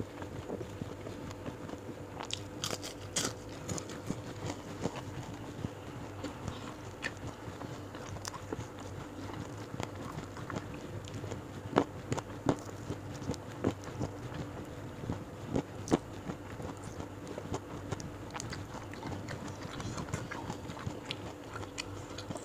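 Close-miked eating: chewing and biting into crunchy fried salted fish and raw vegetables, with irregular sharp crunches and mouth sounds, two louder crunches about twelve and sixteen seconds in. A faint steady hum lies underneath.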